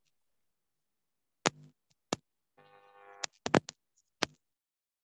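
About eight sharp clicks, scattered at first and then bunched together near the end. Just before the bunch comes a faint steady hum lasting about half a second.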